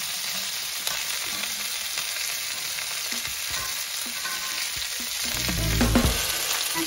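Duck legs sizzling steadily in their rendered fat on a hot griddle plate. A brief low rumble and bump comes near the end.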